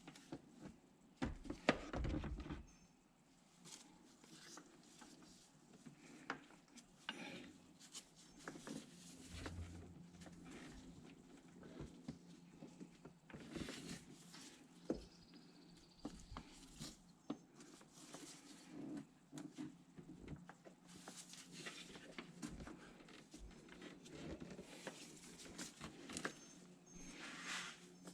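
Scattered light clicks, knocks and rubbing as a new serpentine belt is worked by hand around the pulleys of a BMW engine, over a faint steady hum. The louder knocks come about two seconds in and near the end.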